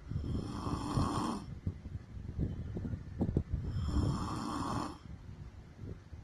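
A woman snoring in her sleep: two drawn-out snores about three and a half seconds apart, each lasting a little over a second.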